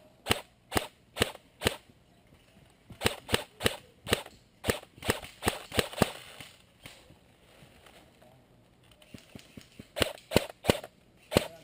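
Airsoft rifles firing single shots in quick strings of sharp cracks, about two a second: a burst of five, a longer string of about ten, then several more near the end.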